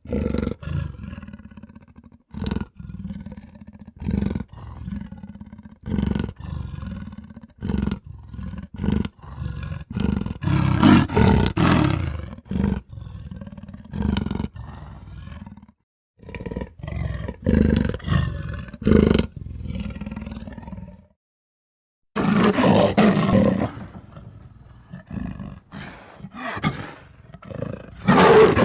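A string of edited creature roar sound effects for a cartoon rhino, played one after another: short bursts at first, then longer, louder roars, with two abrupt cuts to dead silence.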